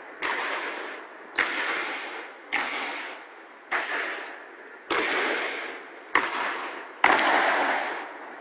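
Ceremonial guard's boots stamping on a marble floor in a slow, even march: seven heavy steps about a second apart, each ringing out in a long echo through the hall.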